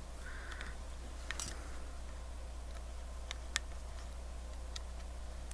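Small, sharp metal clicks and a brief scrape, a few scattered over several seconds, as a watch case back is pressed and worked onto the case over a troublesome gasket.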